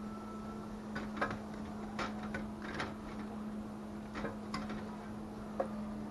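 Light metal clicks and clinks, about eight of them at irregular intervals, as a jar lifter and hot pint canning jars knock against the inside of an aluminum pressure canner while the jars are lifted out, over a steady low hum.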